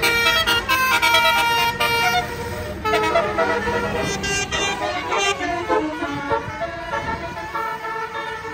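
Tour bus 'telolet' basuri musical air horn playing a quick melody of stepped notes, with a short break about two and a half seconds in, then more notes that grow fainter over the last few seconds.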